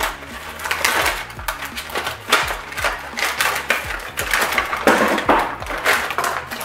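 Thin plastic packaging crinkling and rustling in repeated irregular bursts as it is torn open and handled.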